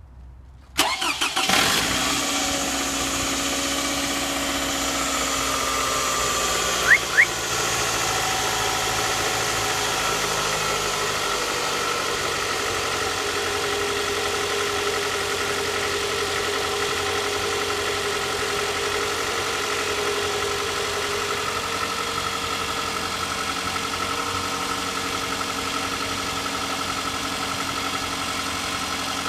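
Toyota 2AZ-FE 2.4-litre four-cylinder engine of a Camry XV40 cranking and catching about a second in, then idling, its speed sliding down over the first ten seconds or so before holding steady. The owner says the engine knocks and does not know why. Two short high chirps about seven seconds in.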